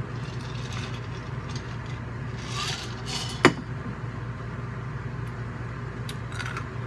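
A drinking glass clinks sharply once against a hard surface about halfway through, most likely a whiskey glass set down after a sip. Lighter handling clicks come near the end, over a steady low hum.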